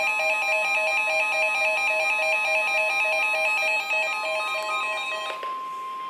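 NOAA weather alert radios sounding their electronic alarm for a severe thunderstorm warning: a fast, regular pattern of several beeping tones that stops about five seconds in. A single steady tone, the weather radio warning alarm tone near 1 kHz, is left sounding alone.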